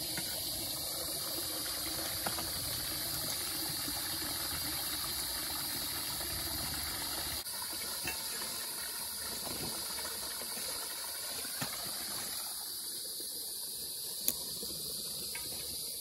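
Shallow runoff water running and trickling through a small muddy channel and pouring over a low step, over a steady high-pitched insect buzz.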